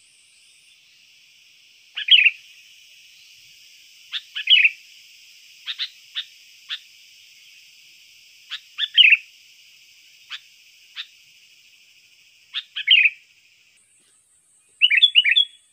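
Sooty-headed bulbul (kutilang) calling: short, sharp notes in clusters every second or two, with a quick run of several notes near the end.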